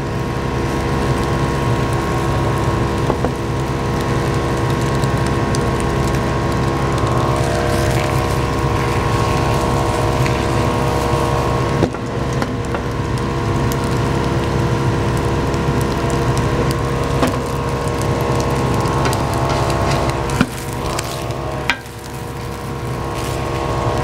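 Kitchen exhaust fan running loudly, a steady whirring wind noise with a constant hum. A couple of sharp clicks near the end, chopsticks against the pan.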